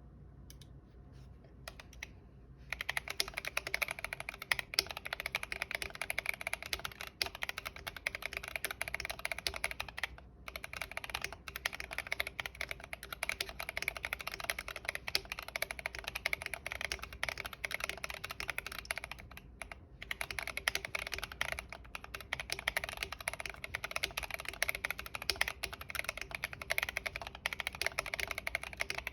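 Steady fast typing on an IDOBAO ID80 mechanical keyboard with Gazzew Boba U4T 62 g tactile switches lubed with Krytox 205g0. A few stray key presses come first, then continuous typing begins a couple of seconds in, with two brief pauses.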